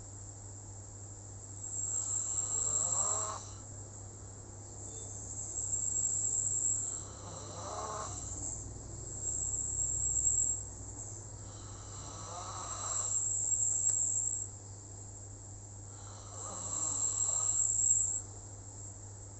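Slow, rhythmic snoring, one rasping breath about every four seconds. A steady high-pitched tone hangs faintly behind it.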